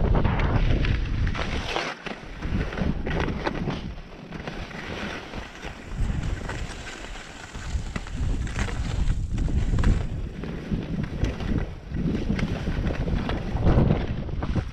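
Skis sliding and scraping over packed snow at a slow glide, with wind buffeting the microphone.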